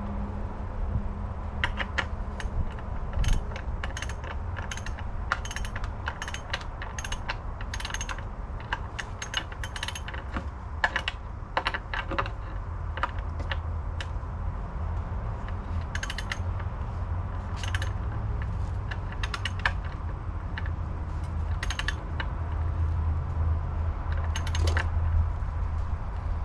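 Irregular sharp clicks and taps of hand tools at work, over a low steady rumble.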